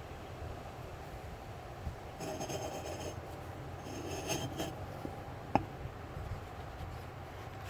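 Metal parts being rubbed and scraped against each other, in two scraping passes with a thin high ringing edge, then one sharp click about five and a half seconds in.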